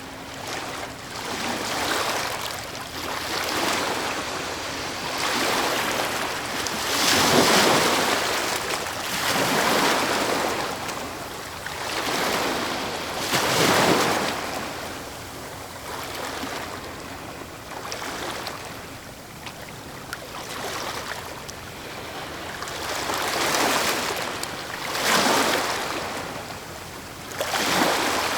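Ocean waves breaking on a shore, a steady wash of surf with several louder crashes that swell and fade, the biggest about a third and half of the way through.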